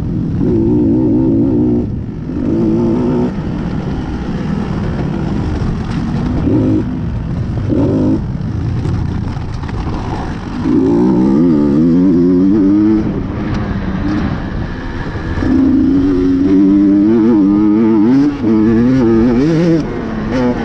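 KTM XC-W dirt bike engine revving up and down in short bursts as the throttle is worked on and off. There are longer, louder pulls about halfway through and again near the end.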